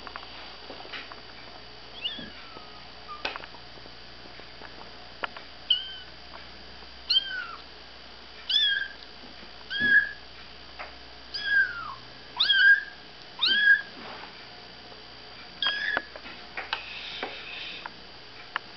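Black-and-white kitten mewing: about eight short, high-pitched mews that fall in pitch, roughly one a second, starting about six seconds in, with scattered faint clicks between them.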